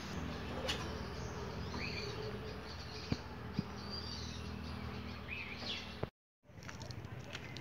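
Scattered short bird chirps over a steady outdoor background hum, with two sharp clicks a little after the middle. The sound drops out completely for a moment near the end.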